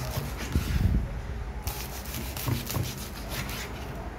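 Knife sawing through the crisp, deep-fried skin of a pork hock: a rapid crackling crunch, with a short break about a second and a half in.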